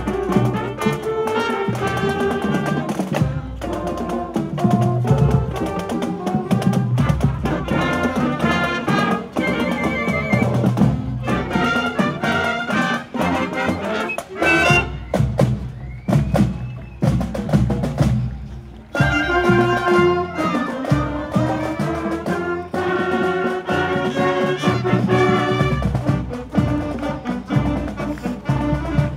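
Marching band playing a tune on clarinets, saxophones and brass over drums. The tune thins out for a few seconds past the middle, then the full band comes back in.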